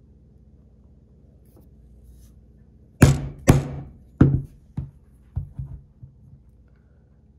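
A poly mallet striking a steel strap end punch to cut the end of a leather strap on a cutting board. About three seconds in come two heavy blows half a second apart, then about six lighter knocks over the next three seconds, each with a short low thud.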